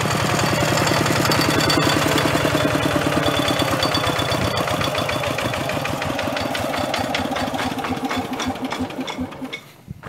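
Single-cylinder diesel engine of a two-wheel walking tractor chugging steadily, then shut off: its beats slow and die away, stopping about nine and a half seconds in.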